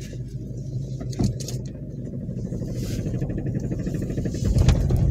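Car engine idling with a steady low hum, a few faint clicks over it, and a louder low rumble swelling about four and a half seconds in.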